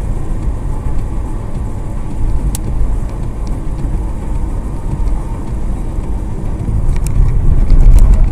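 Cabin noise of a moving car heard through a dashcam: engine and tyres making a steady low rumble, growing louder over the last couple of seconds.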